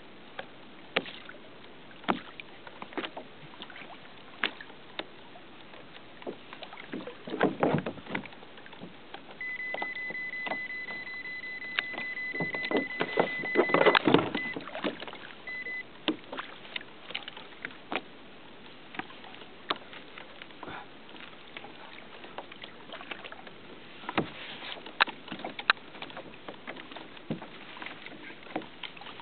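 Water lapping against a kayak's hull, with many small scattered knocks and clicks and two louder noisy swishes, one about a quarter of the way in and one near the middle. Around the middle a steady high tone sounds for about five seconds, then two short beeps.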